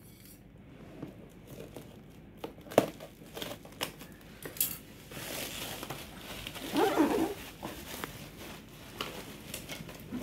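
Clear plastic stretch wrap being pulled off a cardboard box and crumpled, crinkling and tearing, with scattered sharp clicks and a short pitched squeak-like sound about seven seconds in.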